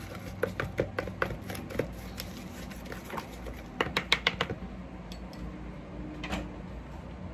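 Metal spoon clicking and scraping against a plastic mixing bowl while stirring a spice mix: a quick, irregular run of clicks that stops about four and a half seconds in, then one more knock a little later.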